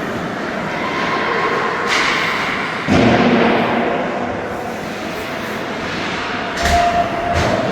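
Game noise from a youth team scrimmage in a large hall: a steady hiss of play, a sharp loud thud about three seconds in, and several quicker thuds near the end.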